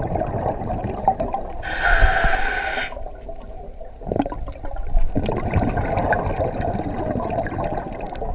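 Diver breathing underwater through a scuba regulator: one loud rush of exhaled bubbles about two seconds in, with a lower murmur of breathing and water around it.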